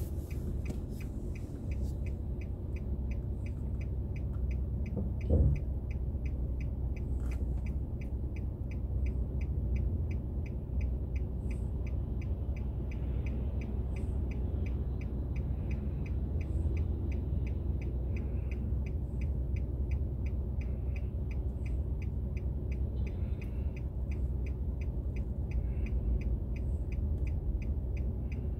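Steady low rumble of a car's engine and road noise heard inside the cabin, with a faint regular ticking of about three a second and a short thump about five seconds in.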